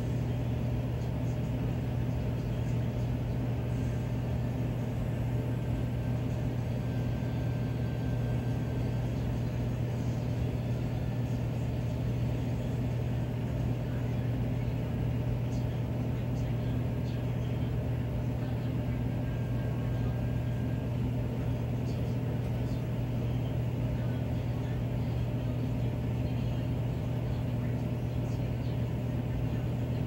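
Miller E2 furnace running in cooling mode, its blower giving a steady, unchanging low hum.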